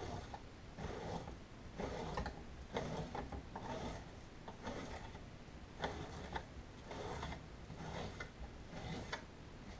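Kitchen knife cutting raw top round steak into small pieces on a plastic cutting board: soft, faint cutting strokes and taps, about one a second.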